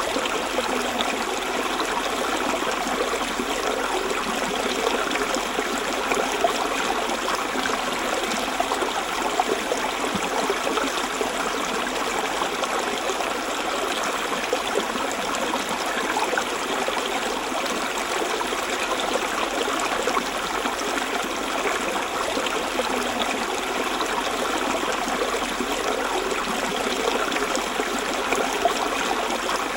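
River water running over rocks: a steady rush and babble of flowing water that holds even throughout.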